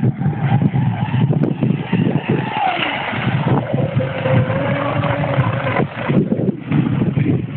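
Electric RC speedboat with a Leopard 3674 2200kv brushless motor running at speed across the water, its whine rising and then holding a steady pitch for about two seconds midway before easing off. Gusty wind rumbles on the microphone.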